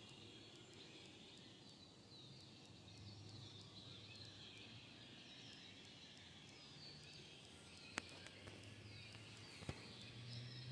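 Near silence of quiet woods, with faint high chirps throughout. Two sharp clicks come about eight and nine and a half seconds in.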